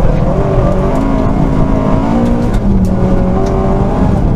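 Rally car's engine running hard, heard from inside the cockpit, its pitch stepping down and climbing again as the driver changes gear and works the throttle, over a heavy low rumble from the tyres and chassis on snow.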